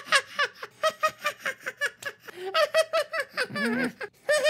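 A high, cartoonish voice laughing 'ha ha ha' in a long run of quick, evenly spaced notes, acted for a cartoon kitten character.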